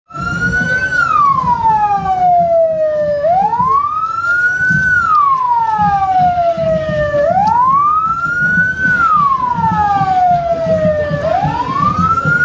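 Police car siren wailing: each cycle rises quickly and then glides slowly down, repeating about every four seconds, over a low background rumble.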